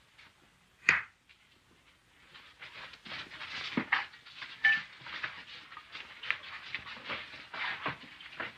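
One sharp knock about a second in, then from about two seconds in the busy scuffle and clatter of a crowd of boys scrambling over wooden benches and sitting down at the tables.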